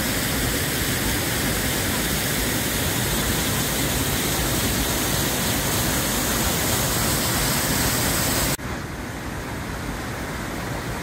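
Steady rushing of the Rhine Falls' water. Over eight seconds in it drops suddenly to a quieter, duller rush with less hiss.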